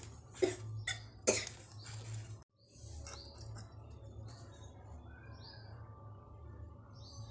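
Knocks and clicks from a phone being handled and set down, over the first two seconds or so. After a brief dropout comes a steady low hum with a few faint, short high chirps.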